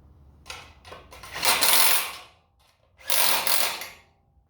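Two bursts of rapid mechanical rattling, each about a second long, from a tool running a nut onto a bolt on a garage door bracket, with a few small clicks of parts being handled before them.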